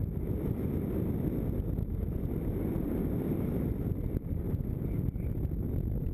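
Steady buffeting rumble of wind over a paraglider pilot's wearable camera microphone in flight, low and even with no breaks.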